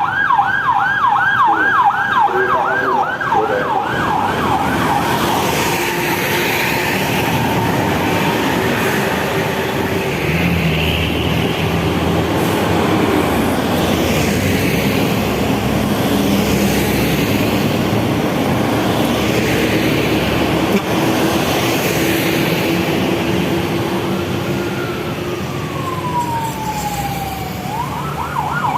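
Convoy escort vehicle's siren on a fast yelp for the first few seconds, then cutting off, leaving heavy passing traffic with long steady tones from the vehicles. Near the end the siren gives one slow rising-and-falling wail.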